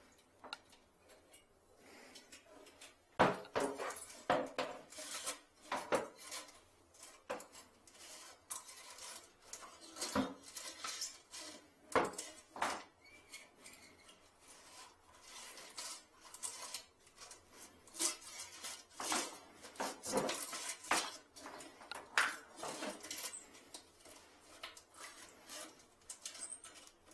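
Irregular metallic clinks, knocks and scrapes from about three seconds in, as a hooked metal rod is worked inside a porcelain toilet's trap against a toilet-paper holder wedged there.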